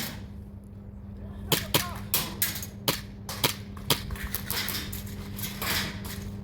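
Airsoft gun shots: a string of sharp, irregular snaps, about eight in two and a half seconds starting about a second and a half in, with one more near the end.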